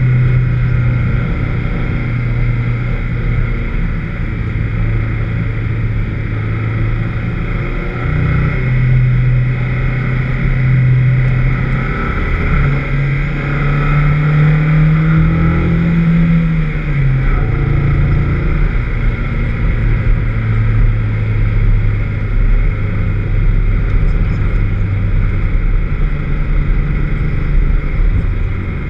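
Vauxhall VX220's four-cylinder engine running hard on track, its pitch holding steady for stretches, climbing for a few seconds past the middle and then dropping sharply as speed changes. The car has a misfire.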